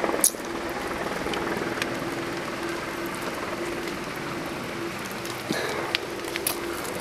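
Vegetation burning as a lava flow moves into forest: a steady hiss with scattered sharp crackles and pops, the sharpest just after the start and a few near the end.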